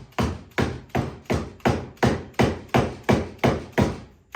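Steady hammer taps, about three a second, driving a boy's axe head down onto its wooden handle for a test fit; each blow has a short ring. The tapping seats the head so that it marks where the handle binds and still needs wood taken off.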